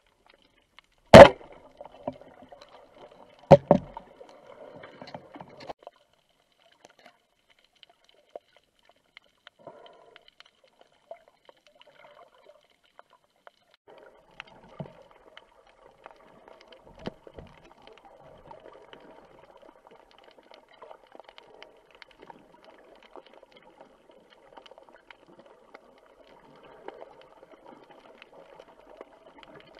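Underwater sound picked up by a diving camera: two sharp, loud knocks about a second in and again about two seconds later, then faint scattered ticking and a light bubbling hiss of the water.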